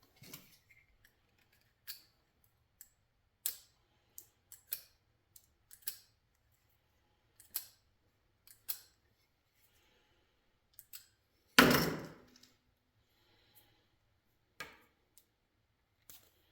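Scattered sharp clicks and snips from a small manual wire stripper cutting and peeling the outer sheath off 14-gauge Romex cable, with one much louder clunk about two-thirds of the way in.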